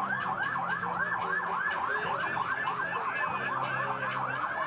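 Emergency vehicle siren on a fast yelp, its pitch sweeping up and down about five times a second.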